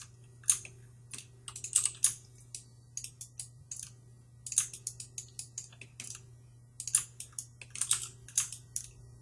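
Computer keyboard keys tapped in short irregular clusters, typical of modelling-software shortcuts, over a faint steady low hum.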